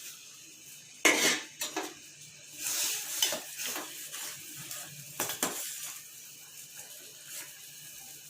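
A spoon clinking against a cooking pot several times, with some stirring and scraping in the pot of boiling herbal decoction; the loudest clink comes about a second in.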